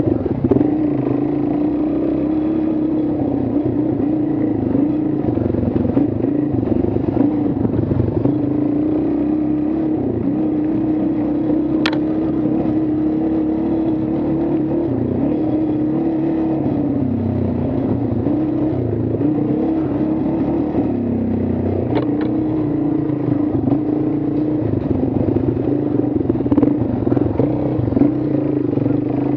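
A vehicle engine running at a steady speed, its pitch dipping briefly twice, with two sharp clicks along the way.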